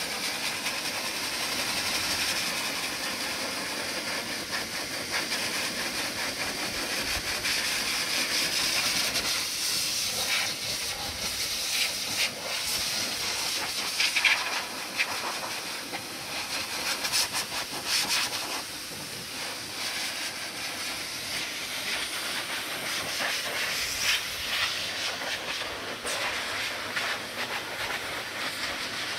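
Dog blow dryer running: a steady hiss of rushing air from its hose nozzle as it is worked over a wet sheep's fleece, swelling and easing a little as the nozzle moves.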